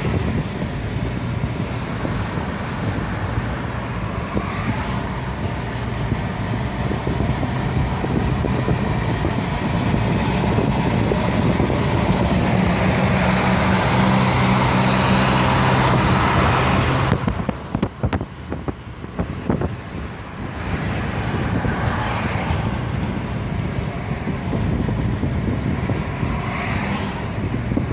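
Steady engine and road noise of a moving vehicle, with a low hum running under it. The noise dips for a few seconds about two-thirds of the way through, then comes back.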